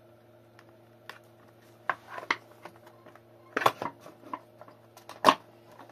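E-bike battery pack casing being fitted back together by hand: scattered clicks and knocks, with a cluster about three and a half seconds in and the loudest knock near the end.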